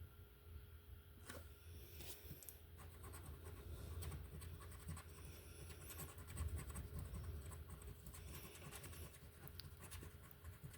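A coin scratching the coating off a scratch-off lottery ticket: faint, quick, repeated short scrapes that start about two seconds in.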